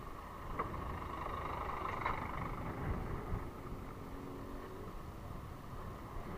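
Road traffic heard from a moving bicycle: a steady rumble and hiss of vehicles and tyres with wind on the microphone, passing close by a stopped truck, with two brief sharp sounds about half a second and two seconds in.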